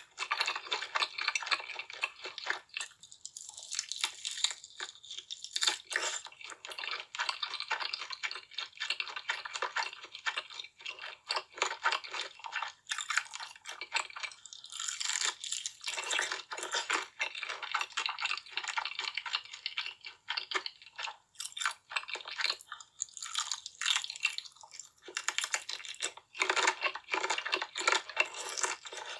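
Close-miked chewing of crunchy food, with dense crisp crackles and crunches coming in quick runs, broken by short pauses.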